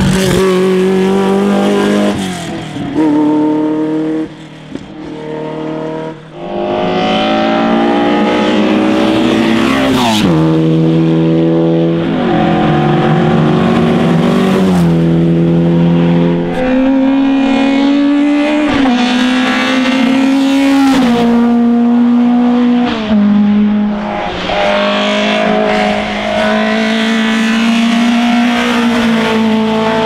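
Classic racing cars at full throttle on a hillclimb, the engines revving up through the gears: the pitch climbs again and again and drops at each upshift.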